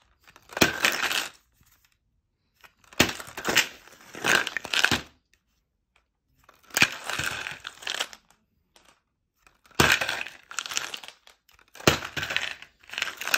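Plastic Lucozade bottle packed with small mint sweets being flipped over and over, the sweets rattling inside as it spins and the bottle knocking down onto a table; about five flips, a couple of seconds apart.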